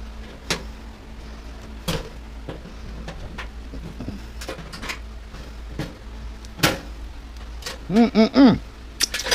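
Scattered sharp clicks and knocks of tools and metal parts being handled while a washer/dryer combo is taken apart, three of them standing out, with a brief wordless vocal sound about eight seconds in.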